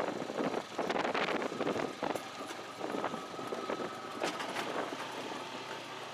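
Honda Pioneer 500 side-by-side driving along a dirt woods trail: a steady rush of tyre and ride noise with many small knocks and rattles.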